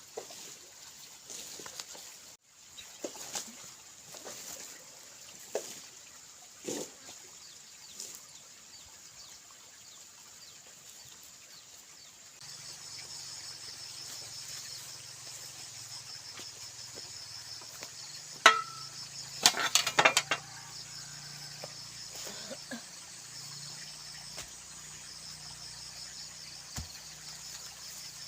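Insects chirring in a rapid, pulsing high trill that starts abruptly about halfway through. Scattered light knocks come before it, and a short run of louder clattering knocks comes in the middle of the trill.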